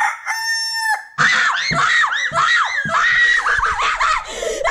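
Girls screaming in fright at a small animal with a tail they have just found. One long, high, steady scream comes first, then about a second in several voices break into overlapping, rising-and-falling shrieks.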